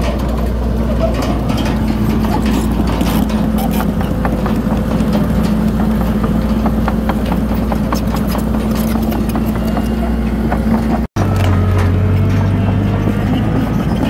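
Komatsu D31PX crawler bulldozer's diesel engine running under load, with the steady clanking and knocking of its steel tracks. After a short cut about 11 seconds in, a deeper, steady engine note takes over.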